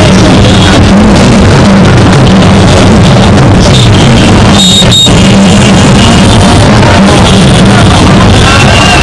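Loud music with drums, playing without a break.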